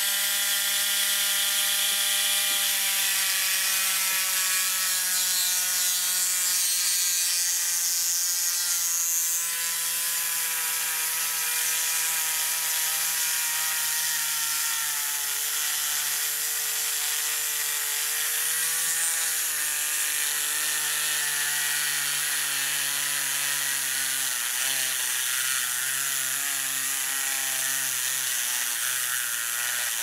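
Small handheld electric rotary tool running steadily while drilling a pin-sized hole in the metal top of a vintage Orlik 153 petrol lighter. Its motor whine sinks slowly in pitch and starts to waver in the last few seconds as the bit bites.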